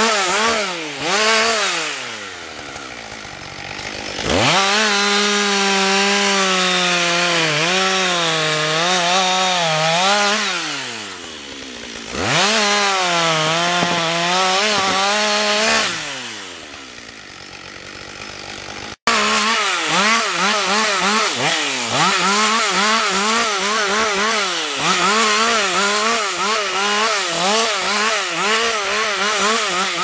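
Husqvarna 562 XP two-stroke chainsaw cutting felled conifer trunks at full throttle, its note wavering as the chain bites into the wood, dropping back to idle between cuts three times. After about 19 s it revs in quick, short, repeated pulses as it limbs branches off a trunk.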